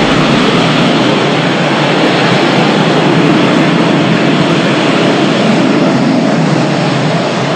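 Designed monster sound effect for the Monsterverse MechaGodzilla: a loud, steady, engine-like mechanical rush without a clear pitch, much like a jet or heavy machine.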